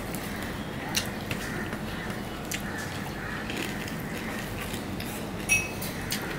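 Eating rice by hand from a stainless-steel plate: fingers mixing and squishing rice and fried fish, with a few light clicks against the plate and, about five and a half seconds in, a sharper tap that rings briefly on the steel.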